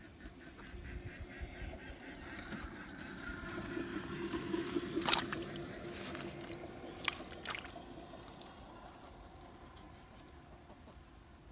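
A steady motor hum swells and then fades away, with three sharp clicks in the middle.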